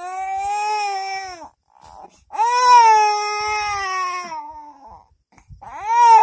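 An infant crying: long, loud wails broken by short breaths, three cries in all, the longest in the middle and the last starting near the end.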